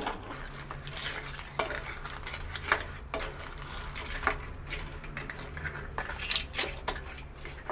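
A wooden spatula stirring pieces of blue swimming crab being blanched in boiling water in a pan: scattered clicks and knocks of spatula and shells against the pan, over a steady low hum.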